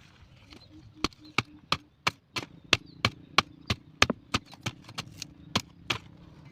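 Wood being chopped with a blade: around sixteen sharp chops at roughly three a second, starting about a second in and stopping shortly before the end.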